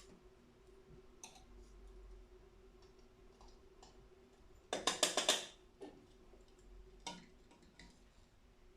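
Light clicks and taps from handling espresso prep gear (grinder catch cup, dosing funnel, portafilter), with a quick run of rapid, louder taps about five seconds in and a few single clicks after. A faint steady hum runs underneath.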